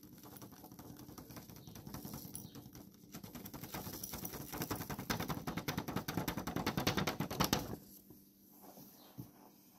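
Sheets of paper held in the hands rustling and fluttering as they are held around a gold pan on a digital scale, a fast crackle that grows louder and stops abruptly about eight seconds in when the paper is taken away. A faint steady low hum lies underneath.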